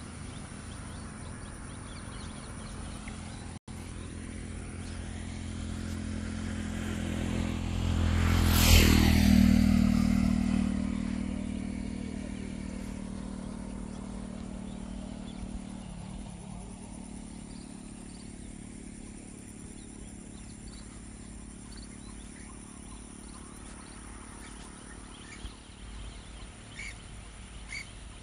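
A motor vehicle passing along the road: its engine grows louder, peaks about nine seconds in with a drop in pitch as it goes by, then fades away.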